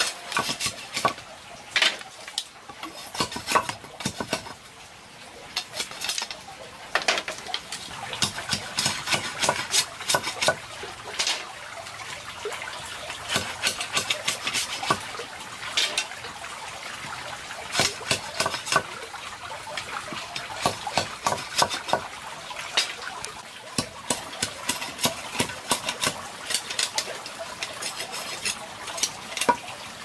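Irregular light knocks and clatter of hard objects being handled, at times several a second.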